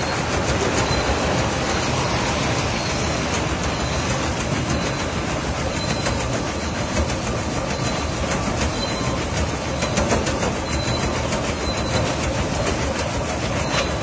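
Sago-pearl sieving machine running with a steady, dense rattle, with a stream of sago pearls pouring off its chute into sacks.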